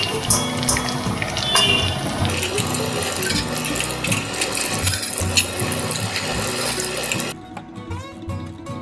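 Potato fritters deep-frying in hot oil in a wok: a dense sizzling crackle over background guitar music. The frying sound cuts off suddenly near the end, leaving only the music.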